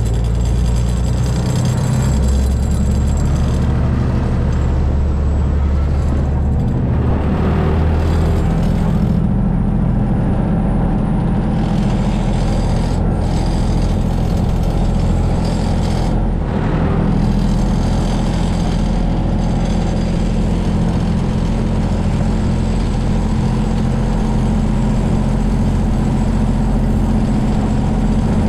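Saen Saep canal passenger boat's engine running steadily with a deep drone. Its low note shifts a couple of times in the first several seconds.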